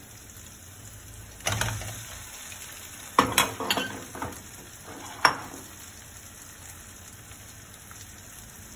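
Fried-rice ingredients sizzling steadily in a wok. About a second and a half in, a dull thud as cooked rice is tipped in from a bowl, then a few sharp clacks of utensils against the wok between three and five and a half seconds in.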